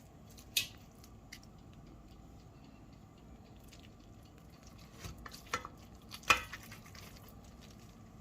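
A cooking spoon clinking and scraping against a pot during stirring: a few sharp knocks, with a cluster near the end and the loudest about six seconds in, over a faint steady background.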